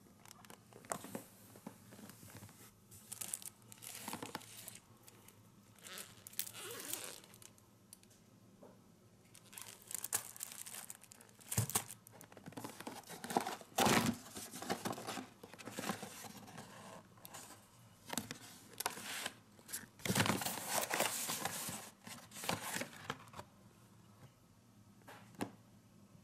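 Firework packaging handled up close: crinkling plastic shrink-wrap and cardboard boxes being moved, in irregular rustles with a few sharp knocks. It is loudest around the middle and again later on.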